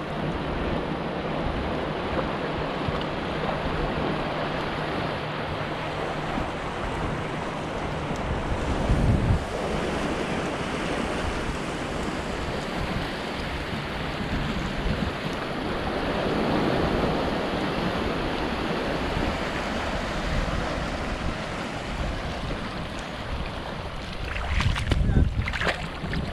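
Seawater washing and wind buffeting the microphone, a steady rushing noise that swells and eases now and then. Near the end there are a couple of brief sharp sounds.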